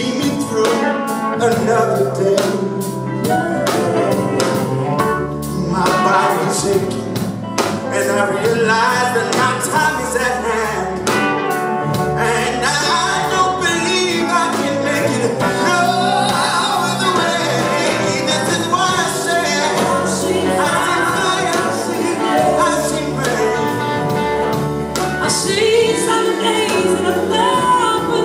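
Live rock band with male backing singers singing harmony between the lead verses, no lyrics clearly made out, over electric guitar, bass and drums.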